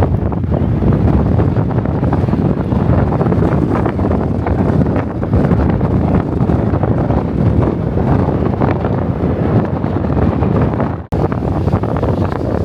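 Wind buffeting the microphone: a loud, steady, low rumble that briefly cuts out about eleven seconds in.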